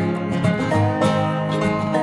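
Background music led by plucked strings such as banjo and guitar, with a steady bass and a regular beat.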